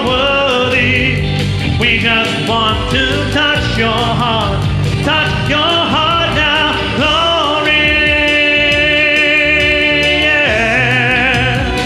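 Live worship band, guitars and keyboard, playing a song with singing, one note held for a few seconds near the end.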